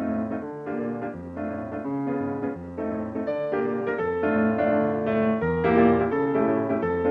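Instrumental piano music over a bass line, playing a melody of quickly changing notes and getting a little louder about halfway through.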